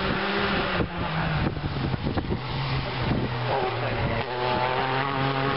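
Rally car passing at speed on a gravel special stage, its engine running at high revs, the note dropping and climbing again with gear changes.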